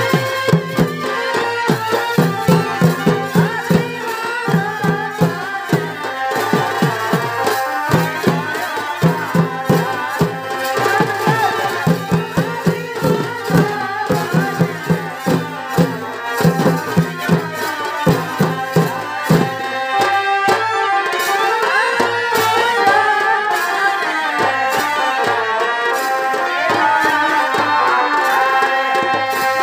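Live Chhau dance music: a wind instrument plays a steady, sustained melody over fast dhol and dhamsa drumming. The drumming thins out after about twenty seconds.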